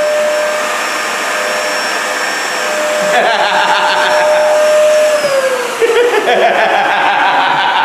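Dyson DC14 upright vacuum cleaner running with a steady motor whine, the power switch working; a little after five seconds in the motor winds down, its whine falling in pitch.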